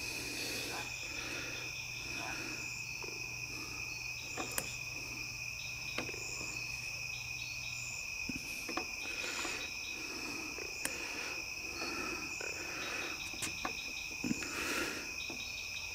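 Steady night insect chorus: a constant high-pitched trill in two bands, with short runs of faster chirping now and then. A few sharp faint clicks come through on top.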